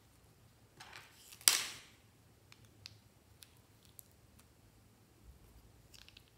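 Light plastic clicks and taps as small toy makeup cases and a metal spatula are handled, with one loud, sharp plastic snap about a second and a half in.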